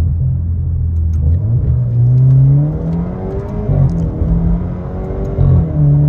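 Alfa Romeo Giulia 2.0's turbocharged four-cylinder engine heard from inside the cabin, revving up under acceleration in manual mode. The engine note rises, then drops about four seconds in as the car is shifted up from second to third gear.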